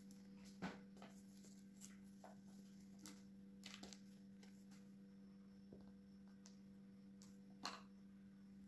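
Near silence with a steady low hum, broken by a few faint light taps from a plastic dough scraper being handled on a silicone baking mat. The two clearest taps come just under a second in and near the end.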